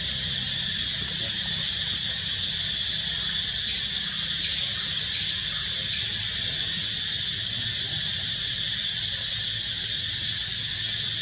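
Steady, high-pitched drone of an insect chorus, unbroken and even throughout, with a low rumble underneath.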